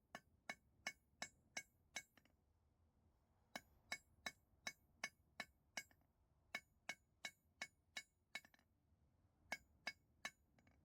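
Blacksmith's hammer striking steel on an anvil with a bright ringing clink, in runs of quick, even blows about three a second separated by short pauses, as the bar is drawn out.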